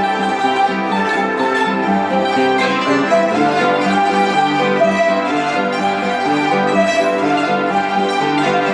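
Mexican salterios, trapezoidal zithers with plucked metal strings, playing a melody together in a string ensemble, many ringing notes in quick succession.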